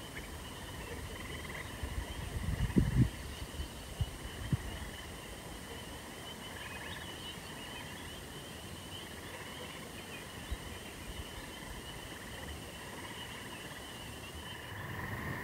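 Outdoor evening ambience: a steady, high-pitched chorus of distant calling animals, with a few brief low thumps between about two and five seconds in.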